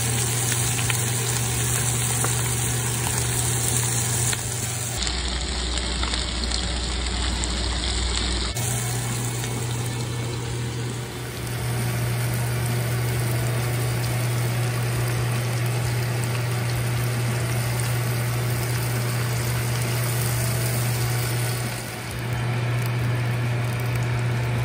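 Steady low hum under an even hiss from a gas stovetop kitchen. The sound changes abruptly about five seconds in, again about three seconds later, and briefly dips near the end.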